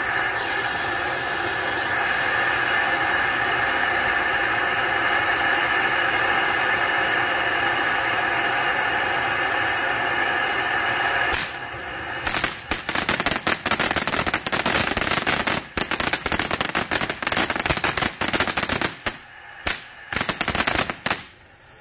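Miracle Fireworks Proud Peacock fountain firework spraying sparks with a steady loud hiss. About eleven seconds in it switches to dense, rapid crackling, many sharp cracks a second, which grows patchier with short gaps near the end.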